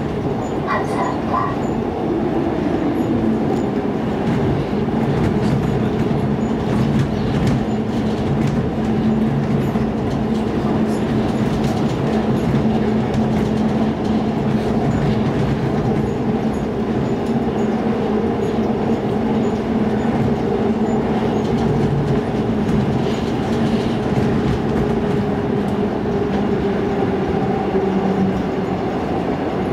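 Seoul Metro 2000-series Line 2 subway train with GEC chopper control running at speed, heard from inside the car. A steady low motor hum runs over the rumble of wheels on rail, and the hum eases a little near the end.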